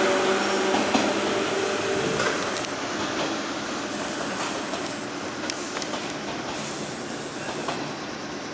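JR Shikoku 121 series electric train running out along the track, its rumble fading steadily as it draws away. A steady whine dies out about two seconds in, and a few sharp clacks come later as the wheels cross rail joints or points.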